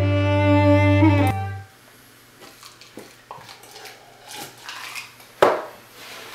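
Celtic music with sustained bowed strings over a steady low drone, ending about a second and a half in. Then quiet, scattered clicks and small knocks of desk handling, with one sharper, louder knock about five seconds in.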